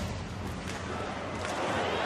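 Ice hockey arena crowd noise during live play, slowly growing louder, with a couple of faint sharp clicks.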